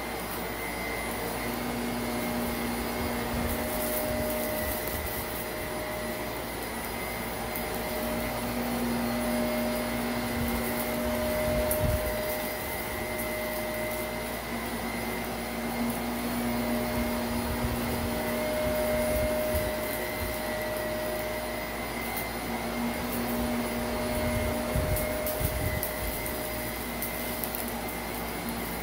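Shark Navigator upright vacuum running on a shaggy rug, a steady motor whine with a lower hum that comes and goes every few seconds as the head is pushed and pulled across the pile. A few light crackles of hidden debris being sucked up, notably about twelve seconds in and again near the end.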